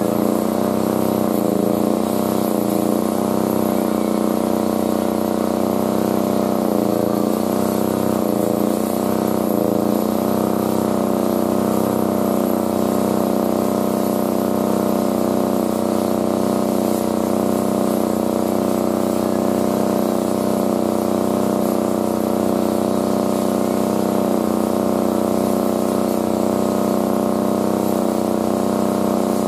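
A motor or engine running steadily, a constant hum that holds the same pitch and level throughout.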